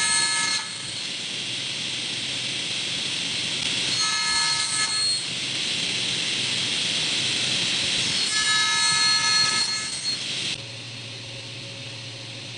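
Table saw running, its blade cutting into wooden door molding three times, each cut a brief whine over the saw's steady noise. About ten and a half seconds in the noise drops to a quieter steady hum.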